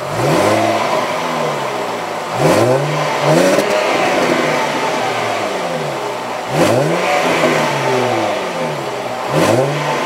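2018 Range Rover Velar's 3.0-litre supercharged V6 exhaust note from the dual rear tailpipes, the idling engine revved in several quick throttle blips, each rising sharply and sliding back down to idle.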